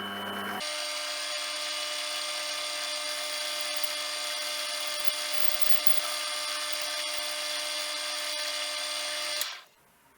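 A small power tool's electric motor runs with a steady whine for about nine seconds, then switches off abruptly.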